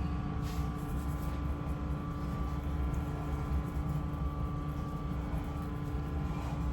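Steady low mechanical hum with a constant pitched whine, like an appliance or fan motor running.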